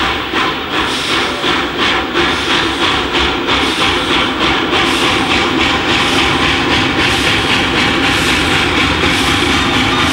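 Steam locomotive working hard under way, its exhaust chuffing in regular beats that quicken as it gathers speed until they run together into a near-continuous rush.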